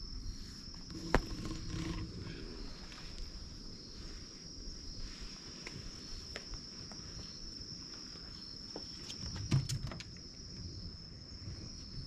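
Steady high-pitched drone of insects singing, with two sharp knocks, one about a second in and a louder one about nine and a half seconds in.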